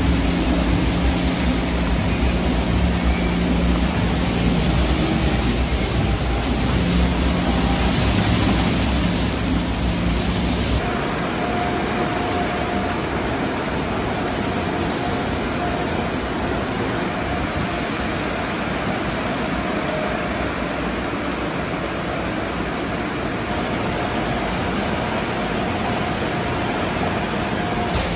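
Tunnel car wash equipment: water jets spraying onto a car make a steady hiss, with a low machinery hum under it. About eleven seconds in the sound changes abruptly to a slightly quieter, steady wash of water from the brush section, with a faint steady whine.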